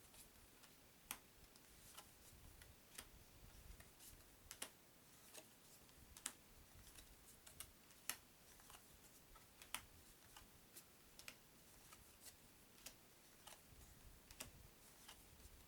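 Uno playing cards being laid down one by one on a table: a string of light, sharp clicks and taps, roughly one or two a second at an uneven pace, over a near-silent background.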